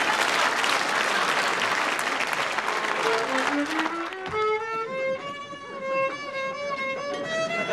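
Studio audience applause for the first three seconds or so, fading, then a solo violin begins a slow melody whose first notes climb in pitch.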